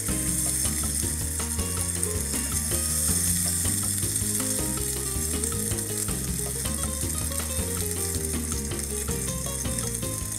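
Taco frying in shallow oil skimmed from the birria stew, with a steady sizzle, under background music with a stepping bass line.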